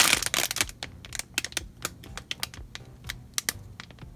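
Plastic packaging bag crinkling as hands squeeze a squishy toy through it: a dense crinkle at first, then scattered light crackles and ticks.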